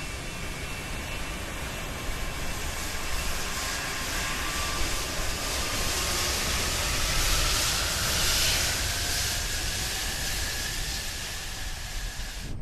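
The four D-18T turbofan engines of an Antonov An-124-100 Ruslan running as the freighter taxis past: a steady jet roar with a high whine that slowly rises in pitch. The roar grows loudest a little past the middle as the engines' exhaust sweeps past, then eases slightly.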